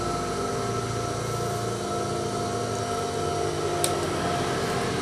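Steady hum of an idling industrial sewing machine motor, holding many fixed tones, with one brief light tick a little before the end.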